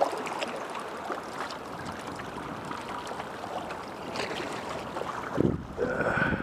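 Small waves washing against a rocky shoreline, with a couple of louder low thumps about five and a half seconds in.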